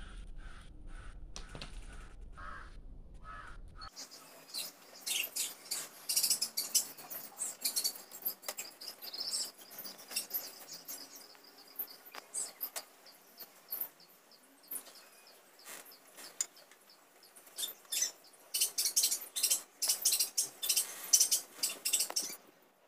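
A knife slicing ripe jackfruit bulbs into thin lengthwise strips: quick runs of short, crisp cuts that come in bursts from about four seconds in.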